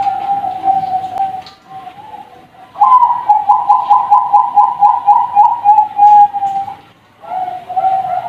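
Young zebra dove (perkutut, Bangkok line) cooing: a long fluttering coo, then after a short pause a fast run of clipped coo notes, about five a second. Cooing resumes near the end after a brief gap.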